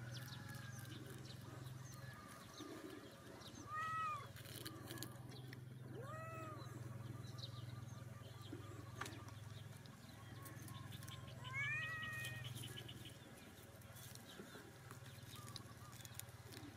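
A cat meowing three times, short pitched calls spread over several seconds, over a steady low hum.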